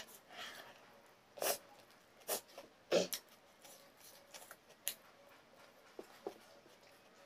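Mouth sounds of a person eating rice and boiled egg by hand: short, sharp smacks and chews at irregular intervals, about seven in all.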